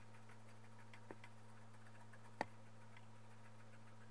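Near silence: a faint steady electrical hum with two faint clicks, the second a little louder.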